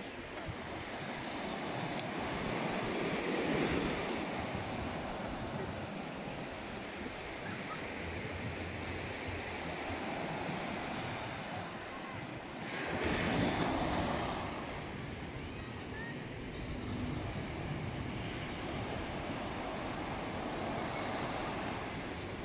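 Small ocean waves washing up on a sandy beach: a continuous surf hiss that swells as each wave breaks and runs up the sand, loudest a little past the middle.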